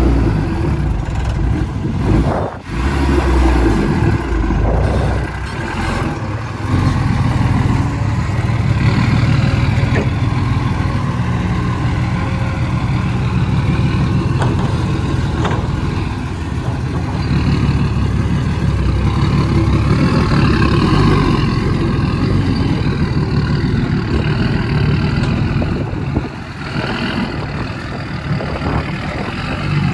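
Engine of a loaded soil-hauling truck running under load while driving, its pitch rising and falling a little, with a brief drop about two and a half seconds in.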